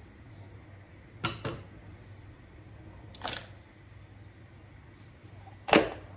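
Kitchen utensils knocking and clinking by a boiling pot: two quick taps about a second in, a brief rattle around three seconds, and a louder sharp knock near the end, over a low steady hum.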